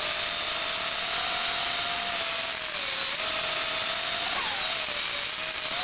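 FPV racing quadcopter's brushless motors and propellers whining steadily, heard from the quad's own onboard camera; the pitch sags and climbs again several times, with a quick upward glide a little after the middle, as the throttle changes.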